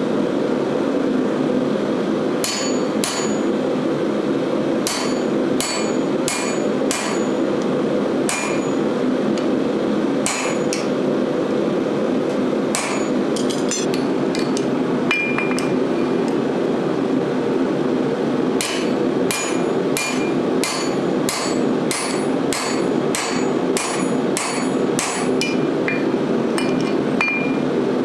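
Hammer blows on a red-hot steel bar against an anvil, each with a short metallic ring. The blows come in short irregular runs, then settle into a steadier run of about two a second in the last third. A steady low drone runs underneath.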